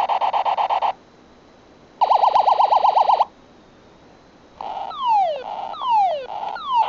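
Electronic sound effects from a light-up toy ray gun: a fast warbling tone for about a second, a second warble after a short pause, then three falling 'zap' sweeps near the end.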